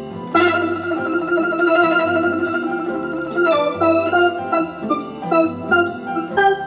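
Roland Aerophone AE-10G digital wind instrument playing a melody on a home-made steel-drum-style patch: three synth basses in different octaves layered with a lead guitar sound, with chorus, reverb and a slight delay. One note is held from about half a second in to about three and a half seconds, then a run of shorter notes follows, with an organ-like tone.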